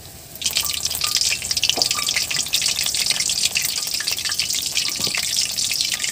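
Hot oil in a steel kadai sizzling and crackling as besan-batter-coated banana flower slices are lowered in. It starts suddenly about half a second in and keeps up a dense, steady sizzle as the pieces fry.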